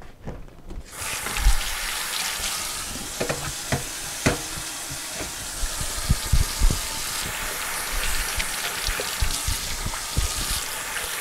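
Water tap turned on about a second in, running steadily into a sink as hands are washed under it, with a few small knocks and splashes.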